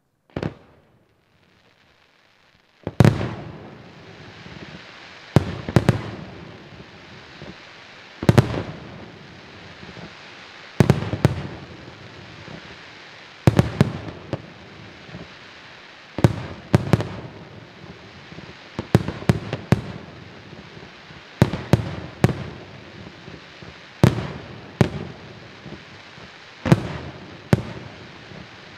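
Aerial firework shells bursting in a display: one bang, a short lull, then loud bangs about every two and a half seconds, several of them in quick pairs, over a steady hiss between the reports.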